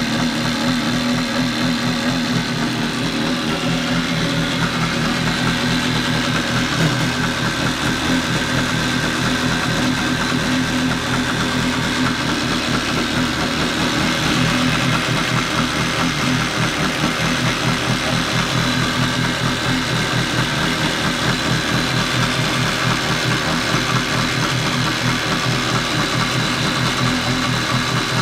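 1987 Kawasaki X2 jet ski's two-stroke twin engine idling steadily as it warms up.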